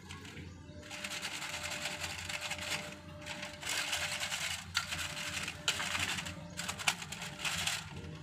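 A hand swishing and pressing in a plate of soap foam, a crackling fizz of bubbles in uneven stretches, over faint background music.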